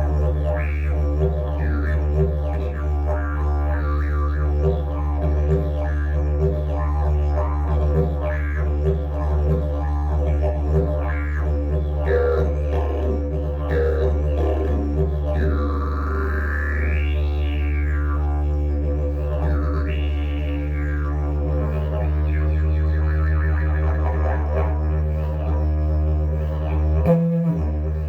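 Agave slide didgeridoo played as a steady low drone, its overtones swept up and down by mouth and voice shaping with rhythmic breath pulses. Near the end the drone breaks into a brief higher note before stopping.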